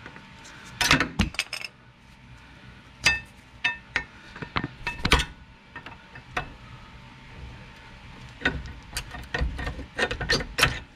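Sharp metallic clinks and knocks, some briefly ringing, in scattered clusters: hand tools and brake parts being handled while a worn rear brake caliper and its pads are taken apart.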